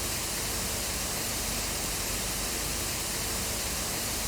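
Steady static hiss: an even rush of noise spread from deep lows to high highs, with no change in level or pitch.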